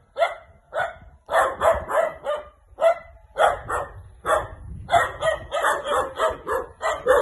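A dog barking over and over, single barks and quick runs of several barks with short pauses between.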